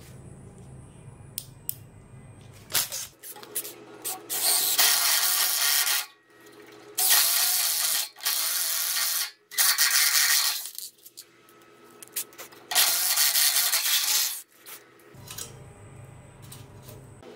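Four bursts of harsh rasping noise, each one and a half to two seconds long, from hand tool work on the build, over a steady low hum.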